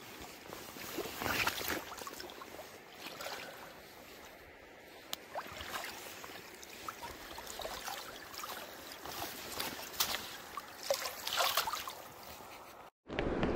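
Water splashing irregularly as a hooked Atlantic spring salmon thrashes at the surface of shallow river water and is drawn into a landing net, the loudest splashes about a second in and again near the end.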